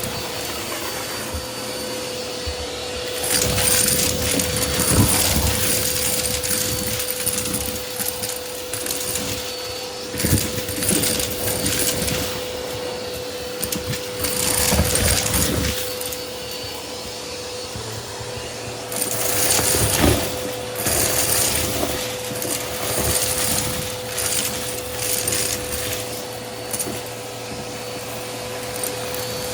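Vacuum cleaner running with a steady motor whine, broken by several bursts of rattling and crackling a few seconds long as loose debris is sucked up through it.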